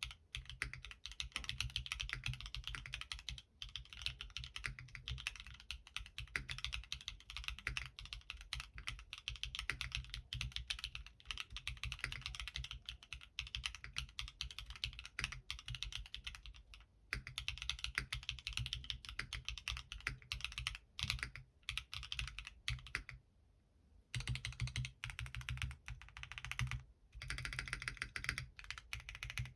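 Fast, steady typing on a Molly60 v2 gasket-mount mechanical keyboard with an aluminium plate, Gateron Smoothie linear switches, lubed TX AP stabilizers and XMI Classic keycaps, its keystrokes coming in a dense stream. The typing breaks off in a few short gaps, the longest about a second, near the end.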